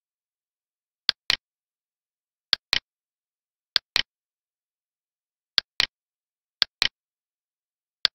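Computer mouse clicks: six of them, spaced one to two seconds apart, each a sharp click of the button going down followed a fraction of a second later by its release, with dead silence in between.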